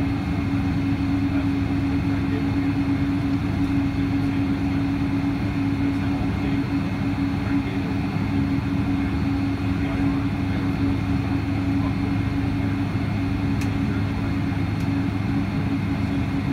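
Steady drone inside the cabin of a Boeing 777-200 taxiing, its engines at low thrust, with a constant hum over the even rush of air and rolling noise.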